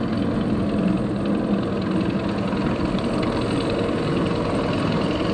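Steady mechanical rumble with a low hum from the Montu inverted roller coaster, its train in motion.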